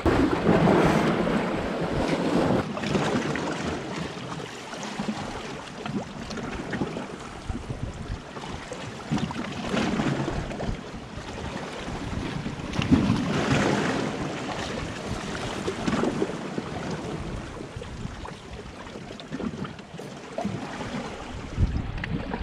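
Small sea waves washing and splashing against shoreline rocks, with wind buffeting the microphone. The wash swells and fades, louder near the start and twice more later on.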